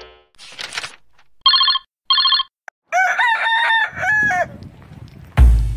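Two short, identical electronic ringing tones, followed by a rooster crowing, its call falling away at the end. Music with a steady bass beat starts near the end.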